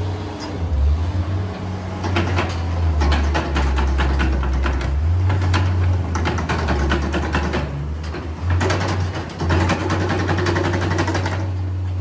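Compact wheel loader's diesel engine running with a steady low drone, overlaid by dense rattling and clanking from the loader and its grapple fork as it spreads straw bedding.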